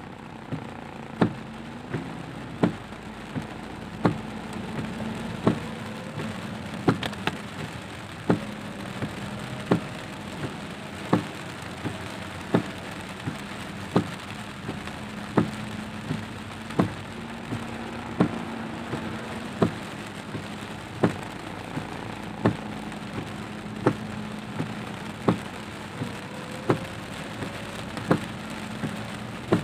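Heavy rain on a car's windscreen and roof, heard from inside the cabin, with the windscreen wipers clicking sharply at each sweep about every one and a half seconds over a steady low hum.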